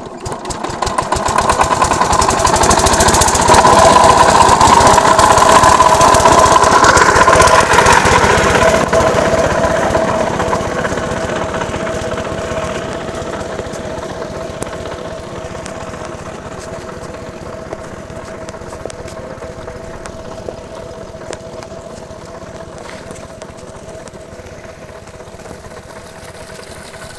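Small stationary engine of an irrigation pump set running steadily after being started. It comes up to full speed over the first few seconds, then grows gradually fainter after about ten seconds.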